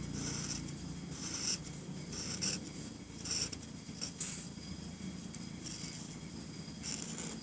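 Artline 70 permanent marker's felt tip drawn across paper in a string of short strokes, each a brief scratchy swish.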